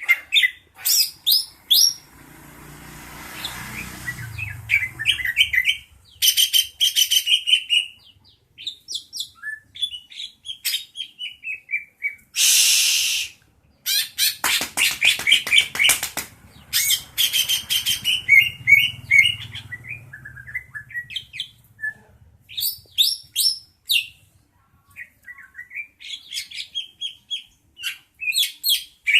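Songbird singing in rapid chirps, trills and falling runs of notes, with a harsh, noisy burst of about a second roughly halfway through.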